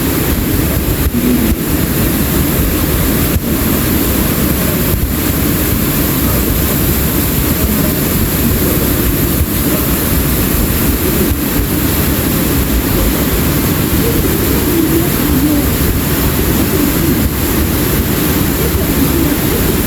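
Heavy rainstorm: rain pouring down steadily, a constant loud rush of noise with a deep rumble underneath.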